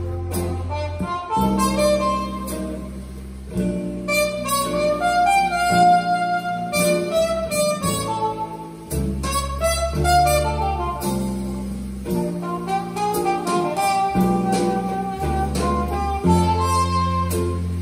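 Recorded music playing back through ATC SCM19 v2 bookshelf speakers driven by an Alchemist APD 15A MkII amplifier: an instrumental passage of a song, with a lead melody moving note to note over a steady bass line.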